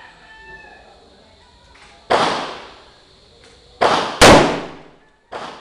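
Four gunshots from a Bushmaster M4 rifle fired one at a time at uneven intervals, each a sharp crack with a short ringing tail. The second and third shots come close together, and the third is the loudest.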